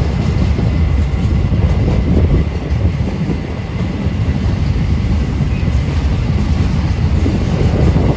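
Freight train of empty grain hopper wagons rolling past close by: a steady, loud rumble of steel wheels on the rails.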